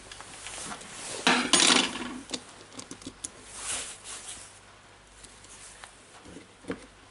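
Handling noise of a cordless drill's plastic gearbox and housing being turned in gloved hands: a rubbing scrape about a second and a half in, then a few light clicks and taps as the gearbox is lined up with the motor.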